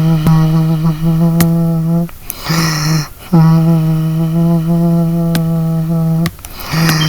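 A person humming one steady low note, held in long stretches that break off briefly about two and three seconds in and again near the end. A few sharp clicks sound over it.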